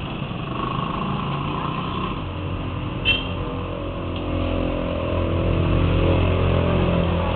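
A motor vehicle's engine running on the street, getting louder in the second half, over a steady low hum, heard through a security camera's microphone. A short, sharp squeak comes about three seconds in.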